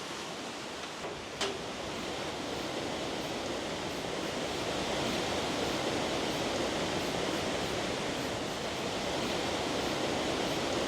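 Iguazú Falls' cascades rushing: a steady, even roar of falling water, with a brief click about a second and a half in.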